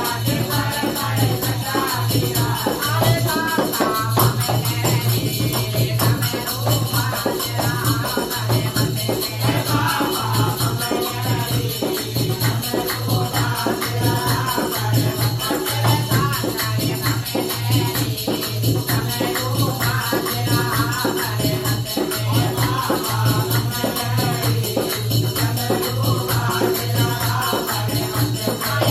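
Devotional bhajan sung by a small group, with a male lead voice over a dholak drum beat, hand clapping and jingling hand percussion keeping a steady rhythm.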